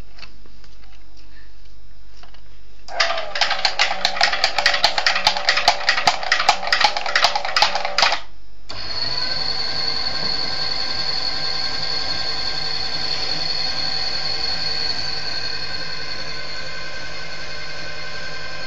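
Small electric motors of a model automatic car-parking mechanism at work. A loud, rapid rattling clatter starts about three seconds in and lasts about five seconds. After a short gap, a motor settles into a steady whine that runs to the end.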